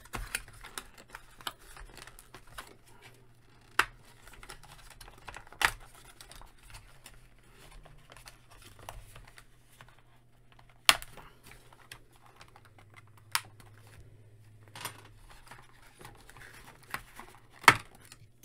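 Unboxing handling of a plastic Transformers Cyberverse Dinobot Slug figure and its cardboard packaging insert: soft rustling and fiddling with a few sharp plastic clicks and snaps as the figure is worked free of what holds it in the tray.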